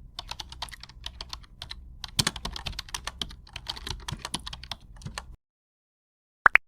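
Fast, irregular computer-keyboard typing clicks for about five seconds that cut off abruptly, followed near the end by a short rising chirp.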